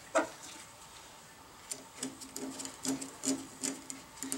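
Hex key turning screws into an aluminium bracket on a lathe headstock: a single click just after the start, then, from about halfway, a run of light metallic ticks at about three a second.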